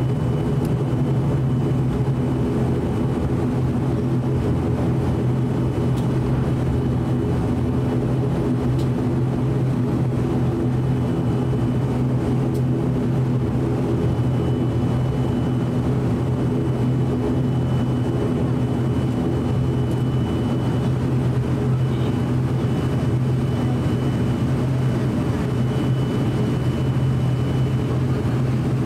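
ATR 42-600 turboprop engine and six-bladed propeller running at taxi power, heard inside the cabin: a steady, loud low drone with a faint high whine that comes and goes.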